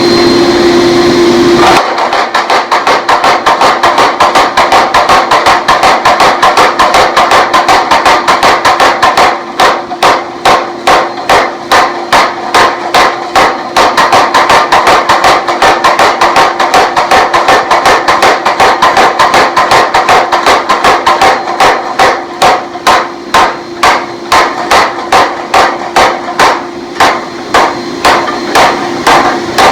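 Hammer blows on hot 4142 chromoly steel on an anvil, flattening out a forged tomahawk head in a fast, even rhythm. The blows start about two seconds in at roughly three to four a second and slow to about two a second partway through. A steady hum runs underneath.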